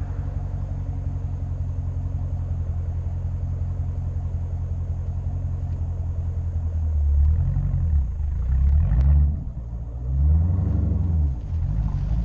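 Muffler-deleted Dodge Challenger Scat Pack's 6.4-litre HEMI V8 exhaust, with a steady low rumble while cruising. About seven seconds in it gets louder as the revs climb and fall through a couple of pulls, eases briefly, then climbs once more.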